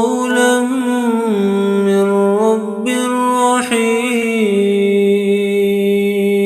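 A single voice chanting a Quranic recitation in long, drawn-out melodic notes that step down in pitch a few times without a break.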